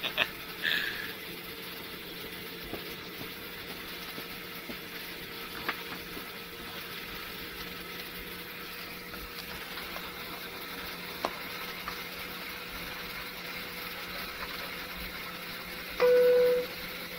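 Steady cabin noise of an airliner taxiing: an even hiss with a faint steady whine and a low hum, and a few light knocks. Near the end a sudden loud tone sounds for under a second.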